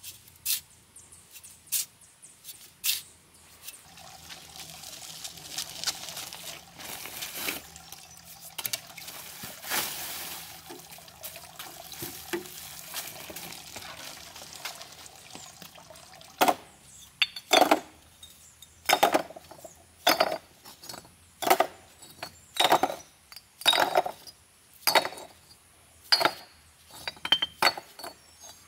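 Fired clay bricks clinking sharply as they are set one by one into a wheelbarrow, about one a second through the second half. A few scrapes of a shovel in sand come near the start.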